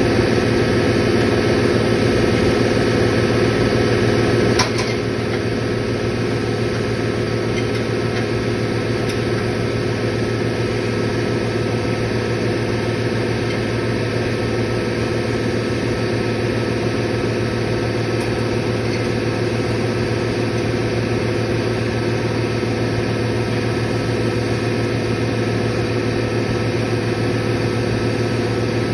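Open-drive compressor machinery running with a steady hum. A sharp click about five seconds in, after which the sound steps slightly quieter and stays steady.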